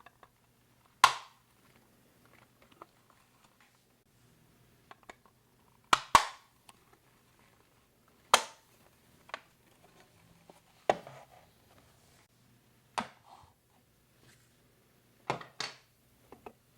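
Plastic LEGO Duplo bricks being handled, knocked and pressed together: a run of sharp clacks at uneven intervals, a few in quick pairs, with faint rustling and clicking between them.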